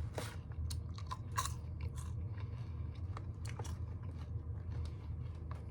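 A person chewing a mouthful of candied kettle-corn popcorn close to the microphone, with many small irregular crunches, over a steady low hum.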